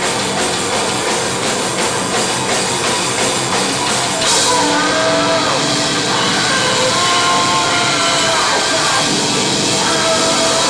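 Live metal band playing loud, with a drum kit pounding under amplified instruments. About four seconds in, the drumming gives way to sustained, wavering tones over a loud wash.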